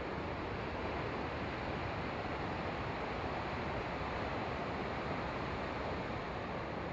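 Steady, even rushing noise of wind and surf, with the far-off rumble of a passing Amtrak passenger train mixed in and no distinct horn or clanks.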